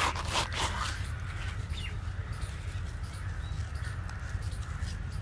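Cumin seeds rubbed and crushed between the palms and sprinkled, a dry scratchy rustle for about the first second. After that, a quiet outdoor background with a low steady rumble and a few faint bird chirps.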